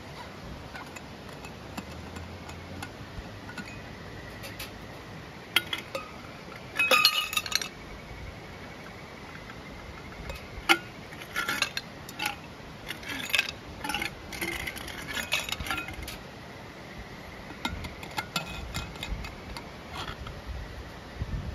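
Light clinking and clattering of hard camp tableware and cookware being handled, in several short bursts, over the steady murmur of a stream.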